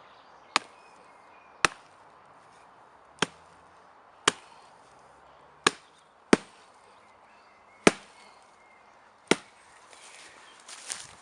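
Wood being split for a campfire, struck eight times in sharp, separate blows about a second or so apart, with a brief scuffling noise near the end.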